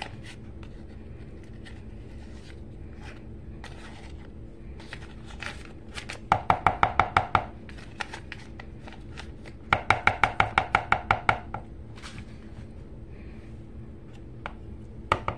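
A knife tapping rapidly against the frosting bowl to knock soft butter off, in two runs of about eight slightly ringing taps a second, each lasting a second or so, with a few scattered knocks between.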